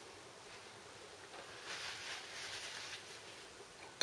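Faint, soft scrubbing of a brush or tissue against watercolour paper, strongest in the middle for about a second and a half.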